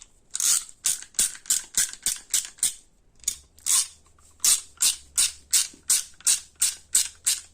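Stanley 72-tooth socket ratchet being swung back and forth, a quick fine ratcheting buzz on each return stroke, about three strokes a second with a short pause about three seconds in. The mechanism runs smoothly without binding, working just fine.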